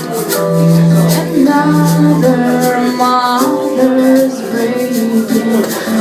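A band playing live: held melodic notes moving in pitch over a steady rattling percussion beat.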